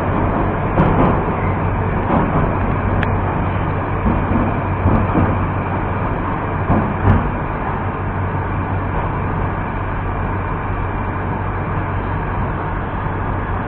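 An 81-765.2 'Moskva' metro train running, heard from inside the car: steady wheel-on-rail noise over a constant low hum, with a sharper knock about seven seconds in. It eases gradually as the train slows into a station.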